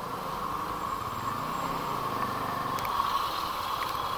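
A vehicle engine running steadily, its pitch shifting a little about halfway through.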